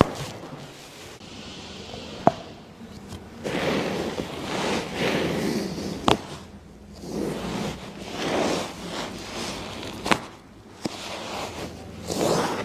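A patient breathing out hard and rustling on the table during a chiropractic adjustment. Three sharp cracks of joints being adjusted come about four seconds apart.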